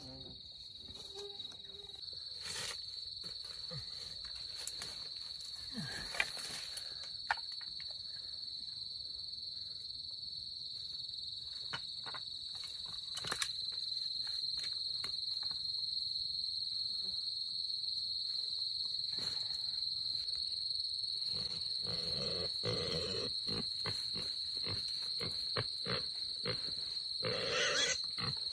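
Steady high-pitched drone of insects, with scattered clicks and knocks over it. In the last several seconds a run of louder, rough bursts comes in.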